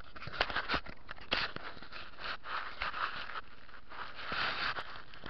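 Rustling and scraping handling noise as a small camera is moved about and set down on carpet, with a few sharp clicks within the first second and a half.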